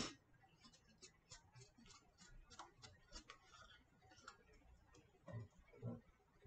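Near silence: faint light ticking, a few ticks a second, with two soft low thumps near the end.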